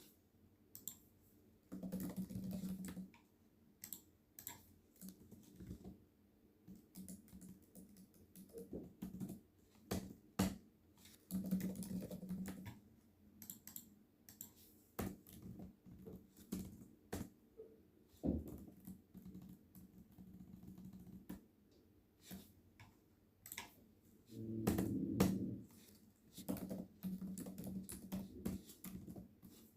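Typing on a computer keyboard: irregular runs of key clicks with short pauses, the densest runs about two, twelve and twenty-five seconds in.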